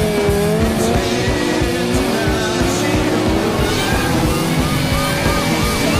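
Rock music soundtrack mixed with a car engine revving and tyres squealing in a drift; a run of short squeal chirps comes near the end.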